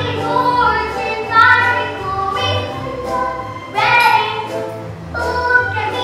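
Children singing a song together over instrumental accompaniment, with a bass line of held low notes under the voices.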